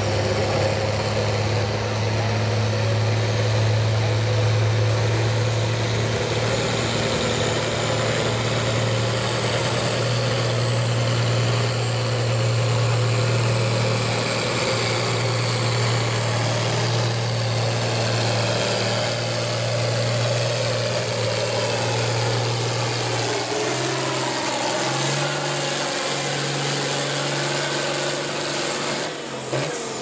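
Diesel farm tractor pulling a sled under full load, its engine running hard and steady, with a high whine that climbs in pitch through the second half. The engine sound drops off sharply near the end as the pull finishes.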